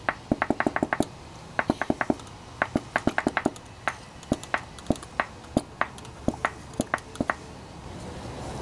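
Pump oil can clicking with each stroke of its pump, in quick runs of several clicks with short pauses, as oil is squirted onto an engine crankshaft. The clicks stop about a second before the end.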